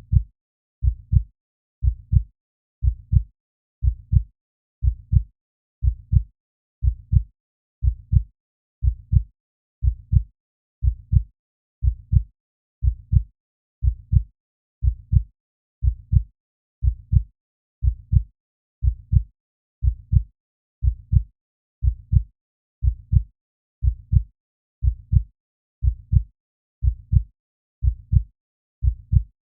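Heartbeat sound effect: a steady double thump (lub-dub) repeating about once a second, low and thudding.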